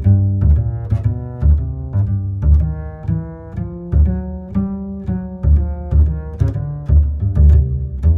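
Background music: deep string notes over a steady beat of about two ticks a second, the notes changing with each beat.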